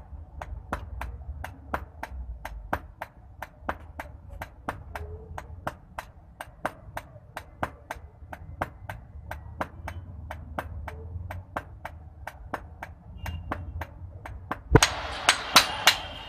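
Hand hammer blows on iron at an anvil in a steady rhythm of about three strikes a second. Near the end the strikes become much louder and ring.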